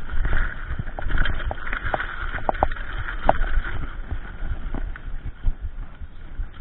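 Mountain bike riding fast over a dirt trail: a steady rumble from the tyres and frame, broken by irregular sharp clicks and knocks as the bike rattles over bumps.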